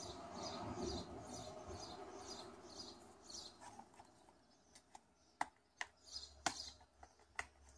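The plastic retail case of a Hoya circular polarizer filter being handled and opened. A soft rubbing and rustling comes first, then a few sharp plastic clicks and snaps in the second half as the case is prised apart.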